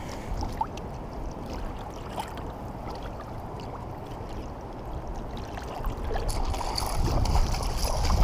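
River water moving and lapping around a kayak as a steady wash, with a few faint ticks. It grows louder in the last couple of seconds.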